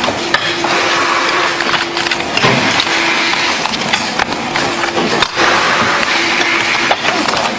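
Playing cards rapidly slapped, flicked and rustled by gloved hands as they are sorted, with many quick clicks, over a steady hum that comes and goes.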